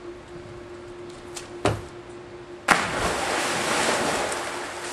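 A person plunging into a backyard above-ground pool: a sudden loud splash a bit over halfway through, followed by a couple of seconds of water rushing and spraying. A single sharp knock comes about a second and a half in, before the splash.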